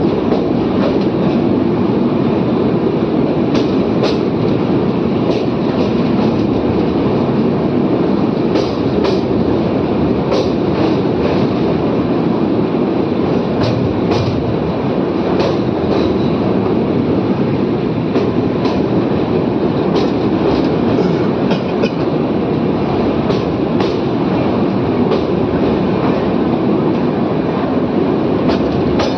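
Train running along the track: a steady loud rumble with sharp clicks of the wheels passing over rail joints, often in pairs, every second or two.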